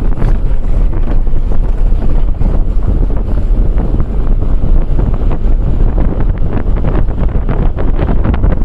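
Wind buffeting the microphone: a loud, constant, fluttering rumble.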